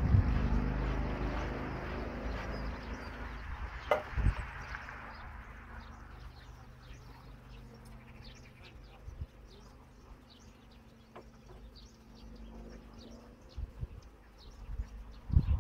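A propeller plane's engine drone fading away over the first few seconds, with one sharp knock about four seconds in; then the faint hum of honeybees around an open hive and small birds chirping.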